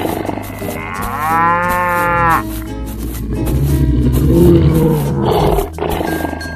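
Cow mooing: a long, low moo from about three seconds in, preceded about a second in by a higher drawn-out call that rises and then holds its pitch. Background music with a steady beat runs underneath.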